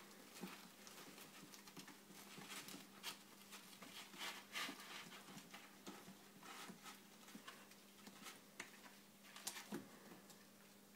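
Faint scuffling of kittens wrestling in a fabric cat bed: scattered soft scratches, taps and rustles of paws and bodies on the cloth.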